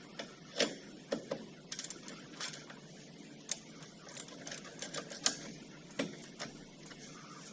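Ratchet with a socket and short extension clicking and clinking on a front brake caliper bolt of a Yamaha Bruin 350 ATV as the bolt is run in. Irregular sharp metallic clicks, some in quick runs.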